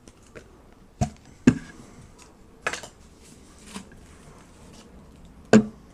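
Small objects being handled and set down on a table: about five sharp knocks and clatters spaced unevenly, the loudest about one and a half seconds in and another near the end.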